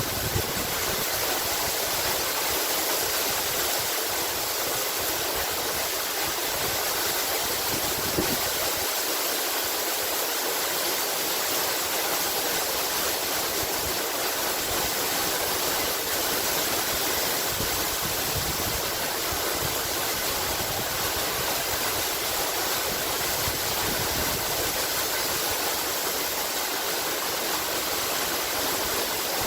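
Water of a cascade or waterfall rushing and splashing in a steady even hiss.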